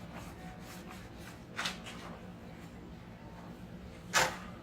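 Faint rubbing and handling noises over a low steady hum, with two short brushing sounds, the second and louder one near the end.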